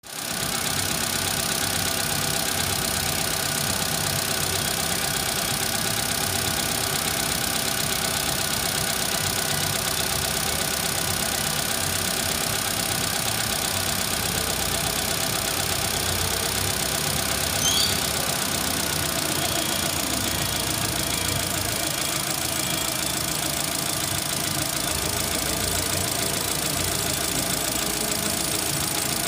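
Holden Astra 1.8-litre Ecotec four-cylinder engine idling steadily under the open bonnet. A brief high chirp sounds once about eighteen seconds in.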